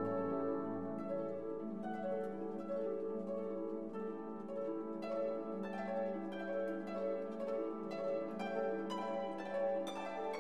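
Instrumental background music: plucked, harp-like notes over held lower notes, the plucked notes coming faster from about halfway through.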